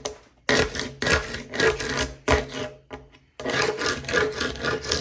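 Paint scraper scraping dried, hardened wood glue squeeze-out off a wooden tabletop board, in a series of rasping strokes with short pauses between them.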